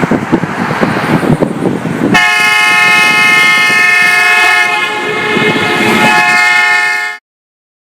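Compressor-driven air train horn blasting a loud, steady chord of several notes, starting about two seconds in after a rough rushing noise and cutting off suddenly.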